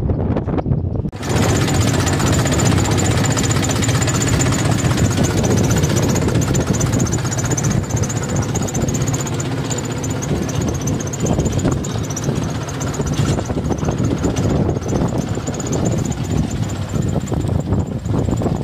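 Tractor engine running steadily as it pulls a seed drill used as a weeder, its tines dragging through the soil between crop rows. The sound starts abruptly about a second in, with a thin high whine over it.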